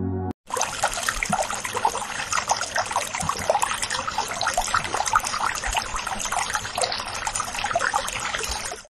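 Water poured in a thin stream into a glass tumbler, trickling and splashing as the glass fills. It starts about half a second in and cuts off abruptly just before the end.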